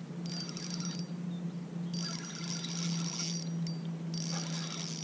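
Spinning reel cranked in short bursts, whirring for about a second at a time with pauses between, as a hooked brown trout is reeled in, over a steady low hum.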